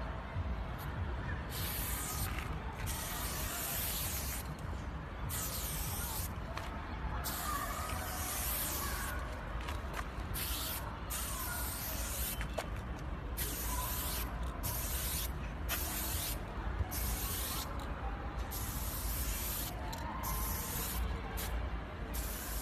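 Aerosol spray-paint can hissing in repeated bursts, short and long, each stopping and starting again as letter strokes are sprayed onto a wall, over a steady low rumble.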